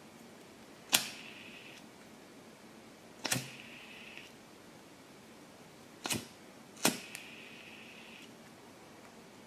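Disposable lighter struck four times, each strike a sharp click, with the gas flame hissing for about a second after three of them.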